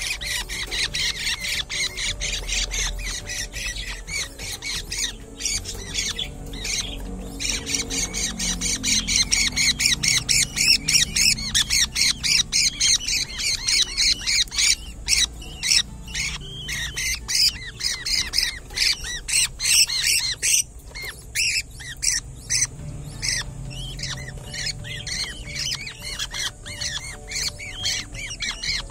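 Young budgerigars squawking and chattering in a constant stream of rapid, high calls, easing briefly about two-thirds of the way through.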